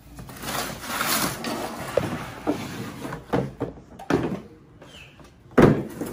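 Hard plastic Dongcheng tool carry cases being handled on a tile floor: a rustle and scrape of handling, then several knocks and clacks of the cases being lifted and set down, the loudest near the end.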